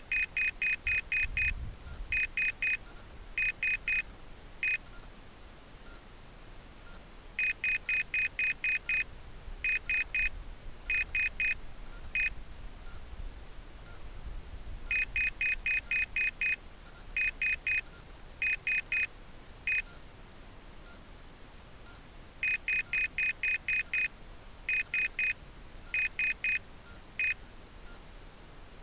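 Rocket flight altimeter beeping out its recorded peak altitude as digit groups: seven quick beeps, then three, three and one, for 7,331 feet. The high, shrill beep sequence repeats about every seven and a half seconds over a faint low wind rumble.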